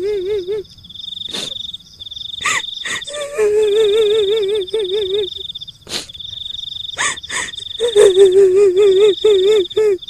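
Kuntilanak ghost sound effect: a woman's high, trembling wail-laugh in three phrases, each breaking into quick 'hi-hi-hi' pulses at its end. Under it runs a steady high insect trill of night crickets that cuts in and out, with a few sharp clicks.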